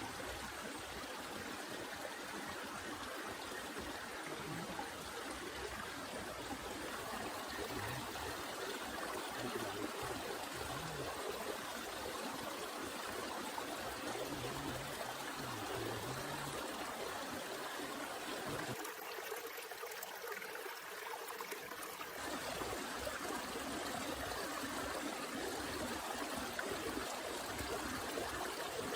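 Heavy rain falling steadily, a constant rushing hiss with no letup; for a few seconds past the middle it sounds thinner, losing its low end.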